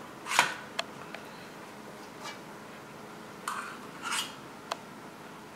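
A metal spoon clinking and scraping against a stainless steel mixing bowl as it scoops sticky dumpling dough: about six short, separate strikes, the loudest about half a second in.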